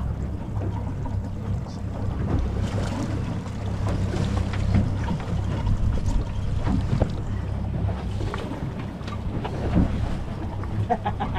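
Steady low rumble of wind buffeting the microphone aboard a boat, with scattered small knocks and clatter.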